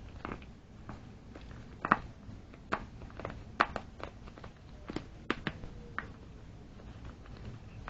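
Irregular light clicks and taps from handling a container of termite and carpenter ant killing dust while dusting it into termite-treatment holes drilled in a concrete slab; the loudest tap falls about two seconds in.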